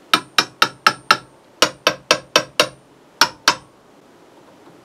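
Sharp knocks, about a dozen in three quick runs, as parts inside an opened Pioneer SX-950 receiver are tapped in a knock test for an intermittent glitch. The fault does not respond to the knocking, which points to a dodgy test adapter connector rather than the amplifier.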